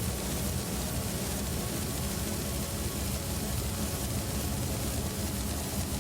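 A steady wash of hiss over a low rumble, with no beat: a noise passage in an experimental electronic music track.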